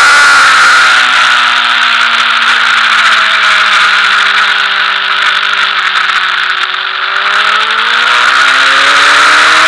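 Sport motorcycle engine at high revs dropping steadily as the bike slows through a long corner, lowest about six or seven seconds in, then revving back up as the throttle opens near the end. Heavy wind rush runs underneath.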